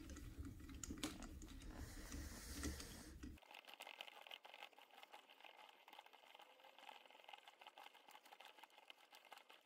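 Faint small clicks and rattles of a steel nut being spun by hand onto the spindle of an old angle grinder's gearhead, over a low hum. About three and a half seconds in, the sound cuts to near silence with only faint hiss.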